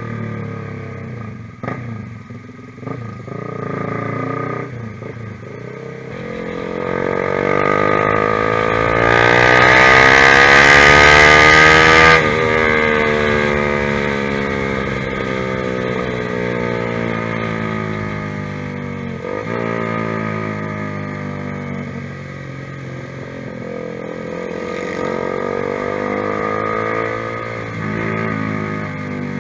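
Honda CBR150R's single-cylinder engine through a ProLiner TR1-R aftermarket exhaust. The revs climb steadily to a loud peak about twelve seconds in, cut off sharply and then fall away slowly. A smaller rise and fall in revs comes near the end.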